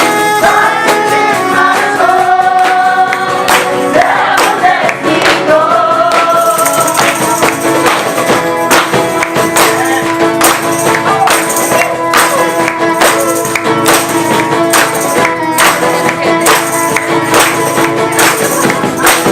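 Live music: voices singing a melody over accompaniment, with a tambourine keeping a quick, steady beat.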